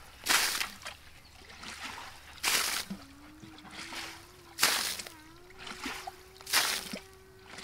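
A bucketful of water is flung out of a muddy puddle onto grass about every two seconds: four splashes, with quieter sloshing as the bucket scoops between throws. A faint steady hum runs through the second half.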